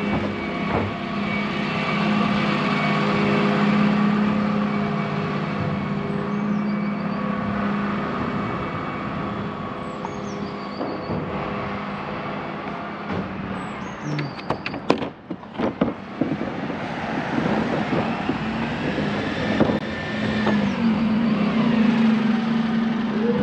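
Dennis Elite 6 refuse truck's diesel engine running as the truck drives slowly along, heard from beside it, with a steady hum.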